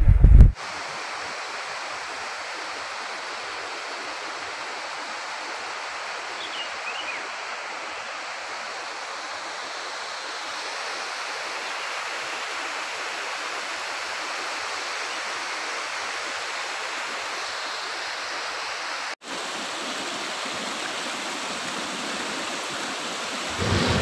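Steady rushing of mountain stream water, an even hiss that drops out for an instant a little after nineteen seconds. A brief loud low rumble sounds in the first half second, and two faint high chirps come about six seconds in.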